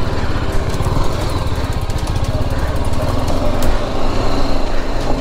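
Single-cylinder motorcycle engine running under throttle as the bike is ridden off-road, with a steady rapid pulsing and a few light knocks from the trail.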